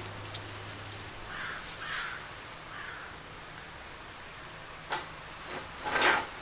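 A bird calling three times, short calls close together, over faint background; near the end come a sharp click and a short louder knock or rustle.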